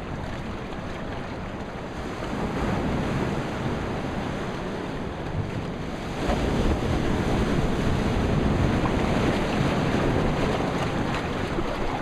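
Ocean surf washing against a rocky shoreline, with wind buffeting the microphone. The wash swells louder about two seconds in and again about six seconds in.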